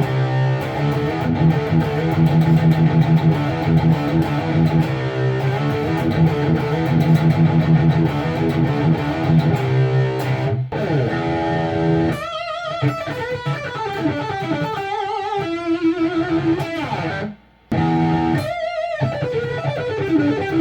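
Van-E Helix LP electric guitar with passive EMG H4 humbuckers being played. It starts with dense low riffing, and from about twelve seconds in moves to higher lead notes that waver in pitch. Near the end it stops briefly and then starts again.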